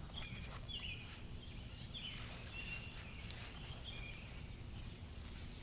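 Small birds chirping in short, repeated calls with quick pitch slides, over a low steady hum.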